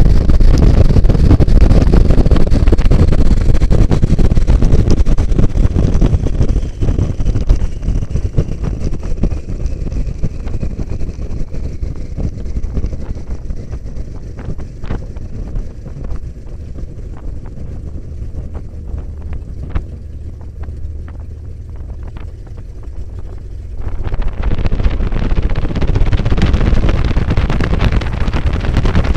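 Light biplane's propeller engine and wind rushing over the open cockpit on a low approach, then the engine is throttled back about six seconds in for the landing. It runs at a low steady idle through the ground roll on grass, with scattered knocks and rattles from the rough strip, and the engine comes up in power again about twenty-four seconds in for taxiing.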